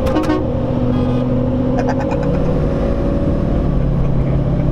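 Steady highway road noise and engine drone inside the cab of a 2012 LML Duramax diesel pickup cruising at speed.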